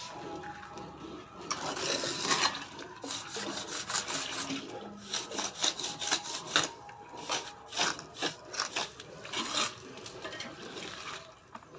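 Steel hand trowel scraping through wet cement mortar in a run of short rasping strokes, starting about a second and a half in, as the mortar bed is spread and scored with grooves for laying a granite slab.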